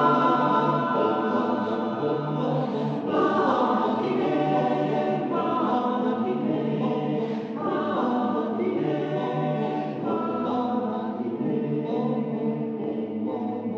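Choir singing in Italian in sustained multi-part harmony, with no instruments heard, growing gradually softer toward the end.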